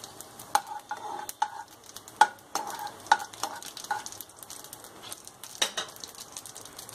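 Cumin seeds frying in hot mustard oil in a kadai: irregular sharp pops and crackles over a faint sizzle as the seeds are stirred around the pan.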